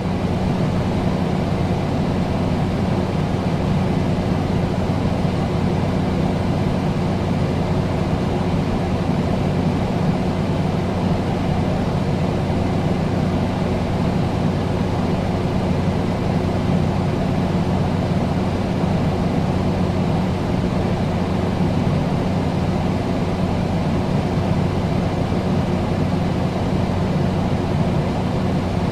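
Air conditioner running steadily: a constant whooshing fan with a low motor hum.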